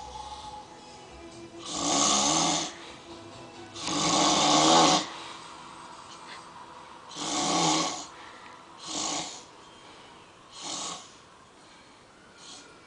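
A heavy-set man snoring loudly in his sleep: about six snores a few seconds apart. The two longest and loudest come about 2 and 4 seconds in, and the later ones grow shorter and weaker.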